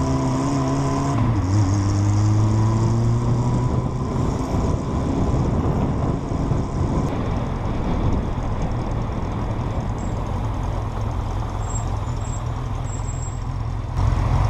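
Road vehicle engine running with tyre and road noise, its note rising over the first few seconds as it accelerates.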